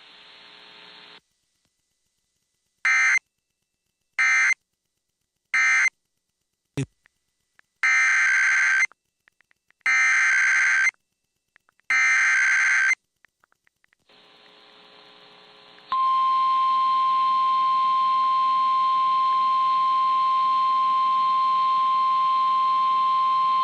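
Emergency Alert System data tones from NOAA Weather Radio. First come three short end-of-message bursts, then three longer warbling SAME header bursts. About two-thirds of the way in, the steady 1050 Hz warning alarm tone starts and holds.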